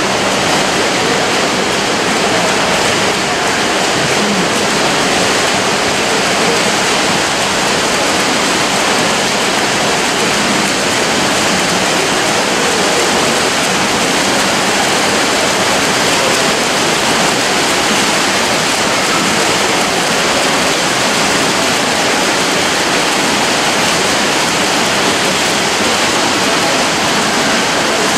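Continuous splashing of several freestyle swimmers racing in a pool, a steady rushing water noise with no breaks.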